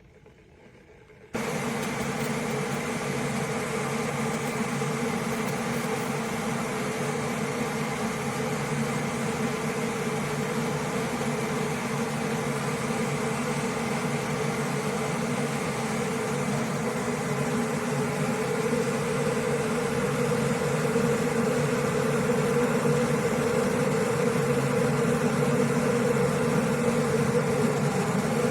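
SUSTEAS 1500 W stainless-steel electric kettle heating water: a steady rushing hum that starts suddenly about a second in and slowly grows louder as the water warms.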